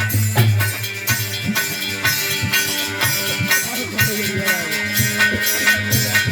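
Instrumental break of Indian folk music: steady, evenly repeated drum beats with rattling, jingling percussion over held melody notes.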